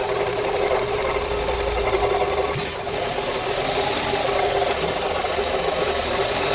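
Renault Fluence engine running at idle with the intake pipe off the throttle body, a steady whine over the engine note. The mechanic blames its stalling on a badly dirty, sticking throttle body.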